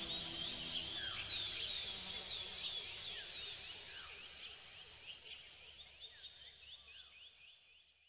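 Nature ambience of insects and birds: a steady high-pitched insect drone, with many quick falling chirps and a few slower falling calls over it. It fades out steadily, nearly to silence by the end.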